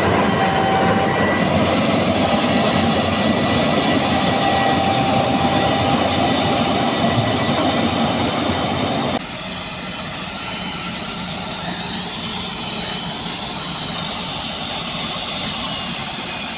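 Combine harvester running: a steady machinery drone of engine and working parts, with high steady whines above it. About nine seconds in the sound changes abruptly, the low rumble dropping away and the higher whines coming forward.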